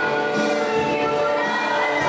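A group of teenage students singing together into stage microphones, holding long notes in a choir-like sound.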